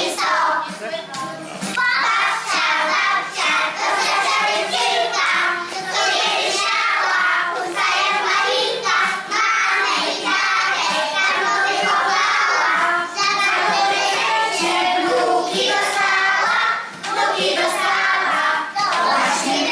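A group of young children singing a song with musical accompaniment.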